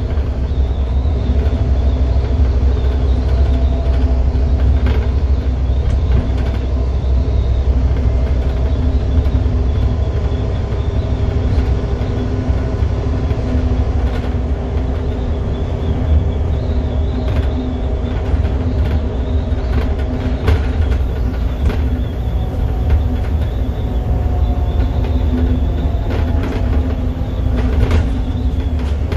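Scania N230UD double-decker bus on the move, heard from the upper deck: its five-cylinder diesel engine, freshly rebuilt, drones steadily with road rumble underneath, and the bodywork gives scattered short knocks and rattles.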